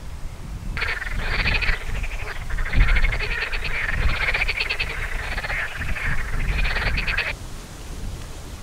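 A chorus of frogs croaking in rapid pulsing calls, starting about a second in and cutting off suddenly near the end, over a low rumble of wind on the microphone.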